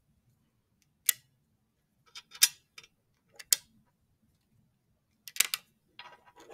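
Plastic balls of a magnetic molecular-model kit clicking as hydrogen atoms are snapped onto the carbon chain: a series of short, sharp clicks at irregular intervals, coming in small clusters.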